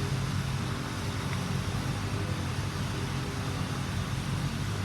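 Steady low hum with a hiss of background noise, unchanging throughout, with no distinct click or event standing out.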